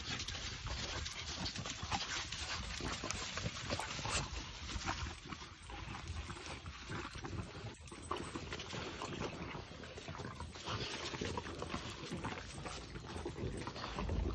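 Several puppies eating raw chicken: a busy, continuous run of chewing and small clicking noises.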